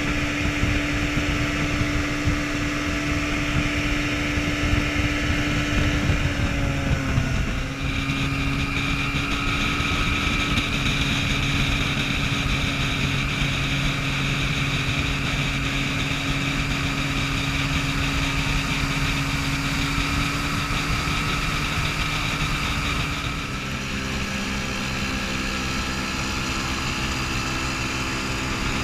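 Antique two-stroke outboard motors running steadily at speed, over a constant rush of water and wind. The engine note changes abruptly twice, about a quarter of the way in and again near the end.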